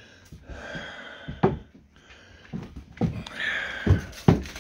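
Breathing close to the phone's microphone in a small room, with a few short thumps, about one and a half seconds in and twice near the end.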